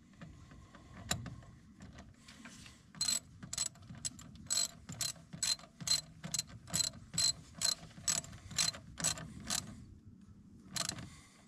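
10 mm ratchet wrench clicking on its back strokes while tightening a tractor battery's negative terminal bolt: a steady run of sharp metallic clicks, about three a second, starting a few seconds in and stopping near the end.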